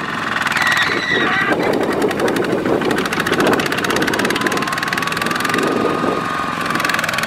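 Several two-wheel walking tractors' single-cylinder diesel engines running together under way, a steady, rapid, even chugging.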